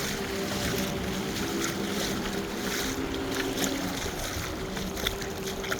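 Boat engine droning offshore over the wash of surf and wind on the microphone, its pitch shifting briefly in the middle.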